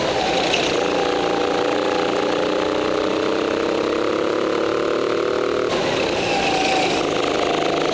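Indoor racing go-kart's small petrol engine running hard, heard from the driver's seat. Its note drops sharply twice as the kart slows for corners and climbs again on the throttle, with a short high squeal at each corner.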